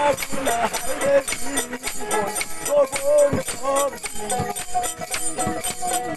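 Bengali folk song: a man sings to a plucked dotara, with wooden clappers and small hand cymbals clicking and jingling in a steady rhythm. The voice stops about four seconds in while the dotara and percussion play on.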